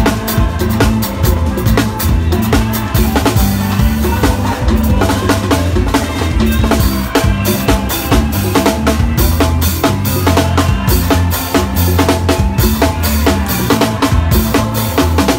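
Drum kit played fast, with dense rapid strokes across the snare and toms and bass drum hits. Underneath runs a band's bass line of sustained low notes that change pitch every second or so.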